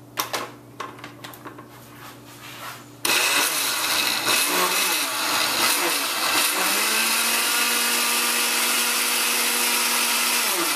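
Countertop blender mixing a liquid marinade. A few light clicks as the lid goes on, then the motor starts suddenly about three seconds in and runs steadily at full speed. A steady motor hum comes through about halfway in.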